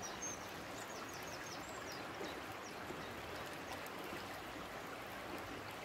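Steady rush of a shallow river flowing, with small birds chirping high above it in the first couple of seconds.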